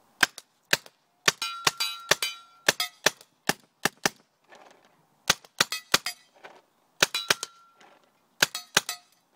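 A CO2-powered BT Omega paintball gun firing about two dozen shots in quick, irregular bursts with short pauses between. A brief metallic ringing lingers after some of the shots.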